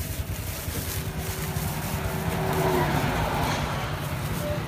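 A motor vehicle's engine running close by, with its sound swelling past the middle and then easing off as it passes.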